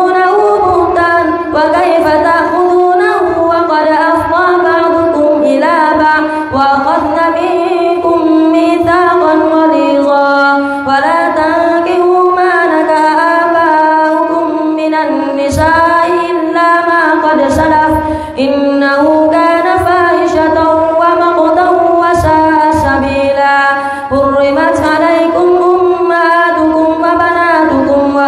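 A boy's voice reciting the Qur'an aloud in a melodic chant over a microphone. He holds long notes that glide up and down, with a few brief pauses for breath.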